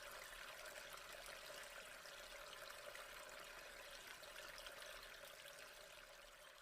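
Waterfall sound effect: a steady rush of falling water that begins to fade near the end.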